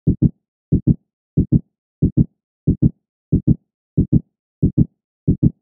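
Heartbeat sound effect: deep double thumps, lub-dub, about every two-thirds of a second, with dead silence between the beats.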